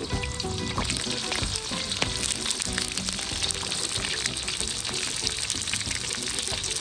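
Whole mackerel frying in hot oil in a steel wok: a steady crackling sizzle, with background music underneath.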